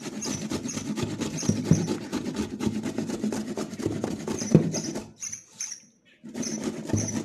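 A fresh carrot being grated by hand on a flat stainless-steel grater resting in a steel colander: quick, repeated rasping strokes, with a brief pause about five seconds in.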